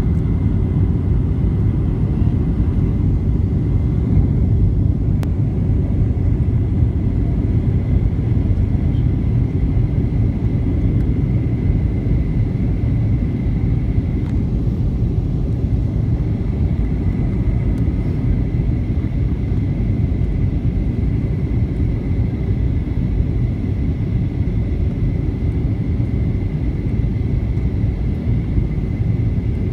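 Steady low rumble of cabin noise inside a Boeing 737-800 in flight on approach to landing: airflow and its CFM56-7B engines, with a faint steady high whine above the rumble.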